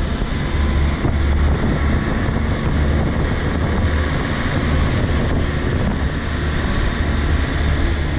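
Truck engine pulling hard uphill in second gear at about 2000 rpm, a steady low drone with wind and road noise over it.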